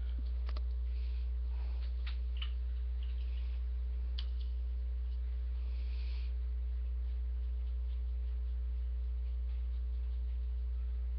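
Steady low electrical mains hum, with a few fainter steady tones above it. A few faint ticks and a brief soft scrape come in the first six seconds.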